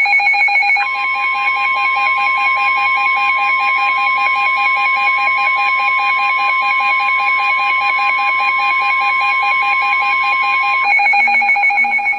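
NOAA Weather Radio warning alarm tone, a steady single tone of about 1050 Hz held for about ten seconds, starting about a second in, over a fast two-pitch beeping alarm that runs throughout. The tone signals that a new warning is about to be read.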